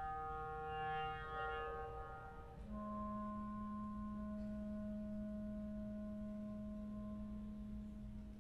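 Clarinet holding one long, quiet low note, coming in about two and a half seconds in as a cluster of ringing sustained tones dies away.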